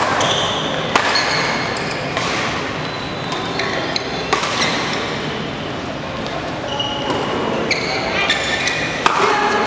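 Badminton rally: racquets strike the shuttlecock with sharp hits a second or two apart, and shoes squeak briefly on the court mat, over the background noise of a large sports hall.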